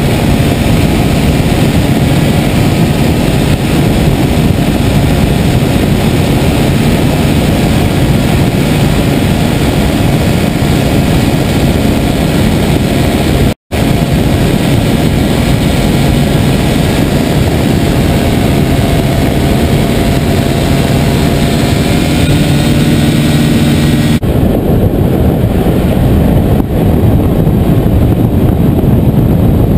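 Mosquito powered hang-glider harness: its small two-stroke engine and propeller running steadily at cruise. The sound drops out for a moment about halfway through, and about four-fifths of the way through it changes abruptly to a duller tone.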